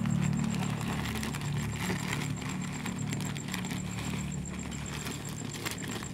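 Plastic bag crinkling as fermented duck feed is shaken and poured into a plastic bucket onto soaked dried rice. The grains make a light crackle, over a steady low hum.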